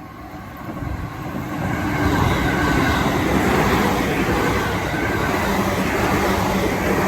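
A JR Chūō Main Line train passing at a level crossing: its running noise swells over the first two seconds, then holds steady and loud.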